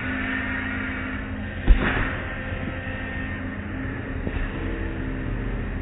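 Automatic car wash heard from inside the car: soft-cloth wash strips sweeping and slapping over the windshield with spraying water, over a steady machinery hum. One loud thump against the car a little under two seconds in, and a lighter knock past four seconds.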